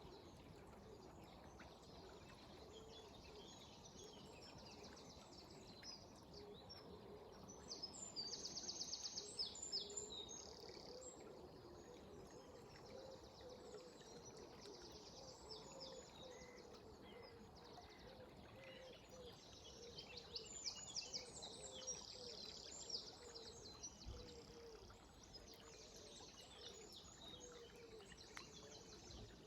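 Songbirds singing in the early morning, with quick high chirps and rapid trills, busiest about eight seconds in and again around twenty seconds, over a faint steady wash of river water.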